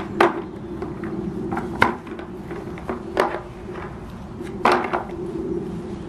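Hollow plastic body of a Henry vacuum cleaner knocking as it is handled, tossed and set down, four sharp knocks spread a second or so apart, over a steady low hum.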